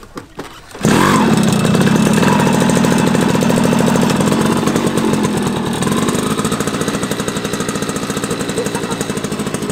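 Small step-through motorcycle engine catching about a second in and then running loudly with a fast, rattly putter, easing off a little about halfway through.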